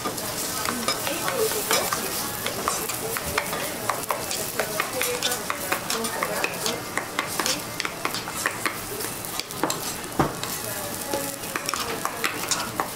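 Food sizzling on a large flat-top teppan griddle, with a metal spoon clinking and scraping in a metal bowl as shredded cabbage is stirred. Many quick clicks of metal utensils run through it.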